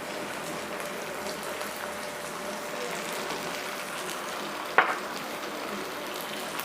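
Onions, green chillies and red chilli paste sizzling steadily in oil in a pan, with one short sharp sound about three-quarters of the way through.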